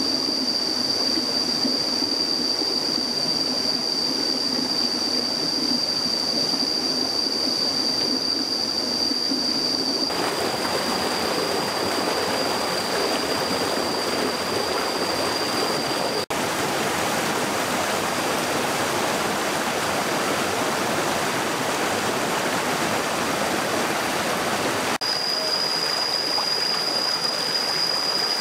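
A rocky forest stream rushing over stones in small rapids, a steady wash of water, with a steady high-pitched whine above it. The water sound changes abruptly at cuts about ten, sixteen and twenty-five seconds in.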